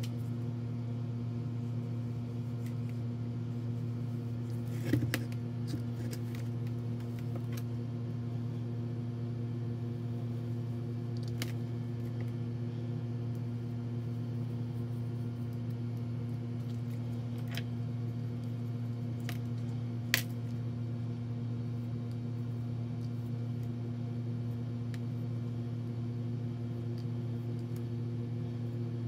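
A steady low hum throughout, with a few sharp ticks and light scraping as a small pointed hand tool carves channels into casting sand packed in a metal flask; two of the ticks, about five seconds in and near two-thirds of the way, are louder.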